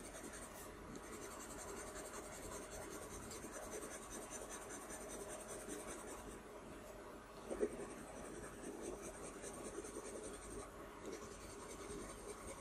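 Coloured pencil scratching softly on drawing paper as it shades. Cicadas buzz faintly in the background, their high drone dropping out twice.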